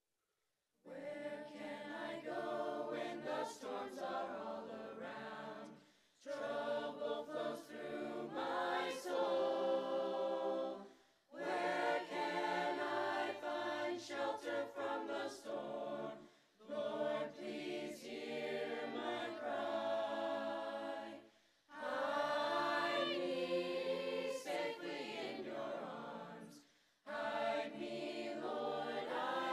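A mixed teenage choir singing, starting about a second in. The singing comes in phrases of about five seconds with brief breaks between them.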